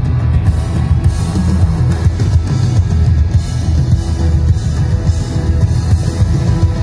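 A live band playing rock-style music loudly through a concert PA, with drum kit, guitar and heavy bass.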